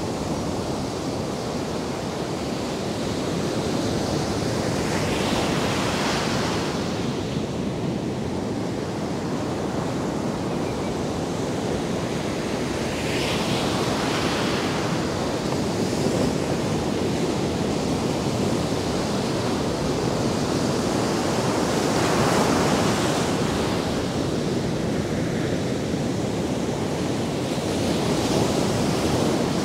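Ocean surf breaking and washing up a sandy beach: a steady rushing noise that swells as each wave breaks, about four times.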